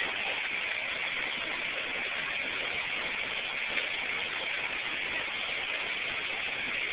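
Steady roar of the Horseshoe Falls at Niagara: an even, unbroken rushing noise from the falling water.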